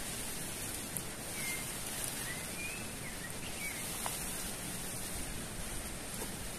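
Tarp fabric rustling as it is unfolded and spread over a hammock, against a steady outdoor hiss. A few short bird chirps come in the middle.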